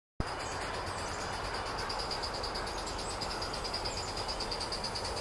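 Insects chirring in a garden: a steady, fast, evenly pulsing high trill over a low background hum, starting suddenly just after the opening.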